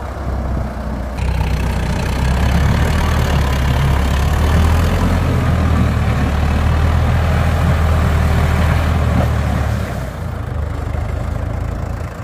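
Backhoe loader's diesel engine working as the machine drives and turns on gravel, a steady heavy drone that grows louder about a second in and eases off near the end.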